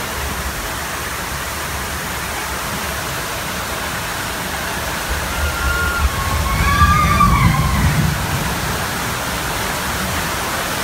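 Steady rush of water pouring down a log flume's lift chute. Around six to eight seconds in it grows louder, with a low rumble and a few brief high tones.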